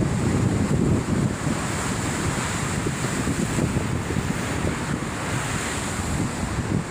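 Rough sea surf crashing on the shore, with strong wind buffeting the microphone.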